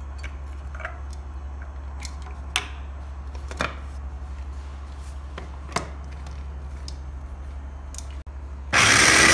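Scattered plastic clicks and knocks as onion pieces go into the jar and the lid and motor unit are fitted on, then, near the end, the Moulinex Multi Moulinette 500 W mini chopper's motor starts abruptly and runs loud and steady, chopping onion.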